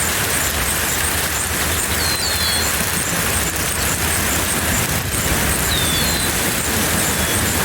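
A steady, loud rushing noise with no engine pattern, over which a bird gives pairs of short falling whistled calls twice, about two and six seconds in, while a faint rapid high ticking runs underneath.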